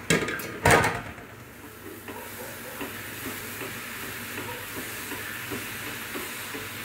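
Tomato masala sizzling in a frying pan while a spoon stirs and scrapes through it. Two loud clatters come about half a second apart in the first second.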